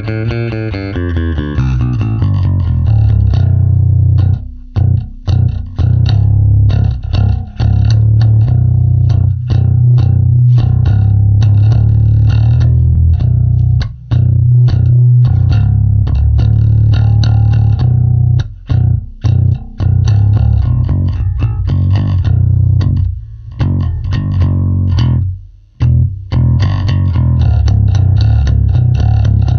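Harley Benton BZ-5000 NT five-string electric bass being played: a run of low, sustained bass notes with short breaks between phrases.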